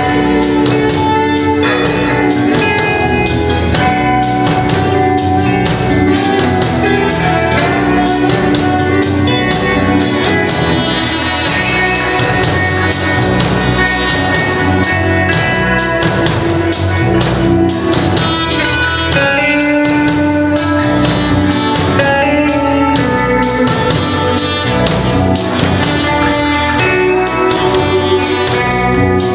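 Live band playing an instrumental, with saxophone lines over electric bass, guitar and drums keeping a steady beat.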